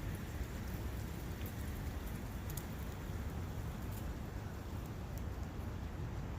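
Forest ambience: wind and a running brook making a steady rushing noise with a deep low rumble. A few faint high ticks sound through it.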